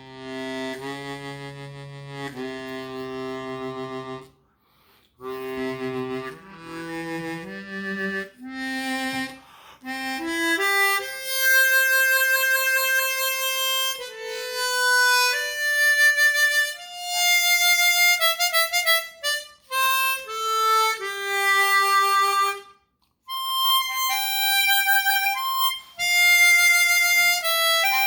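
Psardo Elite chromatic harmonica with Kettlewell Resonant Covers, played acoustically without a microphone. It opens with held low chords, breaks briefly, climbs in a quick rising run, then carries a melody of single high notes with short pauses.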